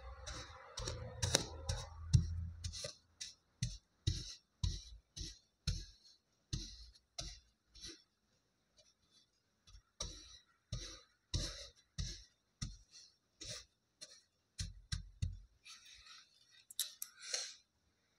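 A plastic tool pressed repeatedly into a thin layer of kinetic sand on a hard tabletop, each press a short soft tap with a light crackle, about one to two a second, with a pause about halfway through.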